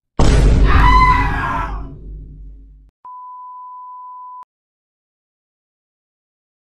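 A loud sound-effect sting with a deep rumble, fading out over about three seconds. It is followed by a test-card beep: one steady pure tone lasting about a second and a half.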